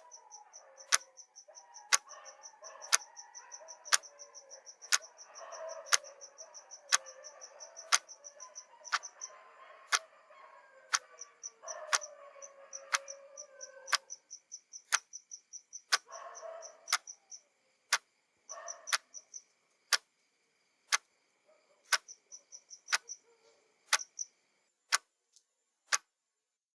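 Clock ticking steadily once a second with sharp, loud ticks, over a night ambience: distant dogs howling in wavering drawn-out tones, heavy in the first half and then in two short bouts, and insects chirping in fast high pulses that stop near the end.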